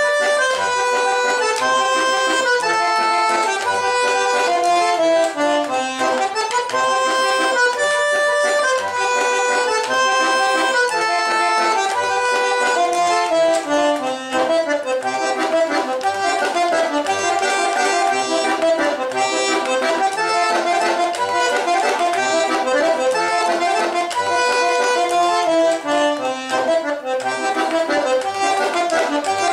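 Solo eight-bass diatonic button accordion (gaita-ponto) playing a folk tune: a running melody on the treble buttons over short, regularly repeated bass notes and chords.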